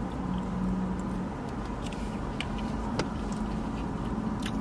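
Close-up chewing of crunchy fried Brussels sprouts, heard as scattered short crisp clicks, the clearest about three seconds in and near the end, over a steady low hum and a held low tone.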